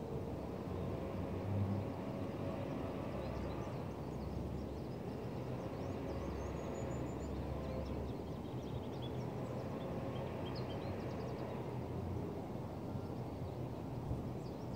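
Outdoor ambience: a steady low rumble, with scattered small bird chirps through the middle.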